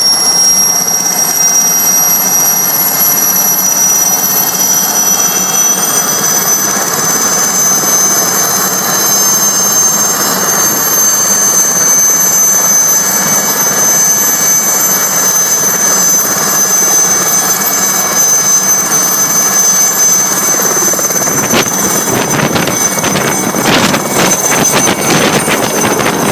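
Aérospatiale SA 315B Lama helicopter's Turbomeca Artouste turboshaft running at power for takeoff: a loud, steady high turbine whine over the rotor and engine roar, rising a little in pitch early on. Near the end a quick run of sharp beats joins it.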